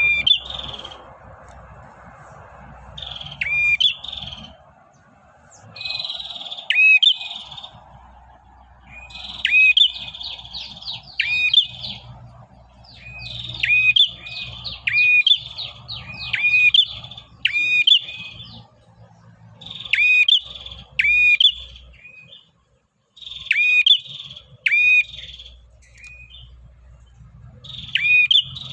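Male prenjak (prinia) in continuous ngacor song, the call used to draw a female: bursts of sharp, quickly dropping chirps repeated about every two seconds, over a faint low hum.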